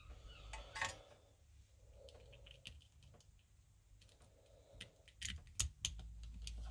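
Faint small clicks and taps of fingers handling a freshly soldered cable at a battery terminal inside a plastic battery case, with a quick run of clicks about five seconds in.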